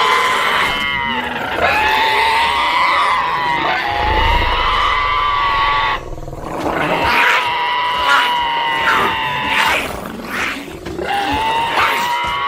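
Sound-designed Parasaurolophus creature calls: long calls held on one steady pitch, in about four stretches of a few seconds each with short breaks between them, and a brief low rumble under the second call.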